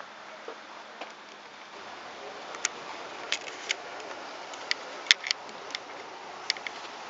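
Irregular sharp clicks and taps over a steady low hiss, starting about two and a half seconds in, with one louder knock about five seconds in.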